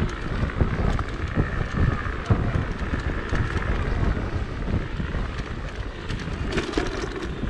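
Wind buffeting the microphone of a rider moving at speed on a Sherman electric unicycle, a gusty low rumble. A faint wavering whine sits above it for the first few seconds.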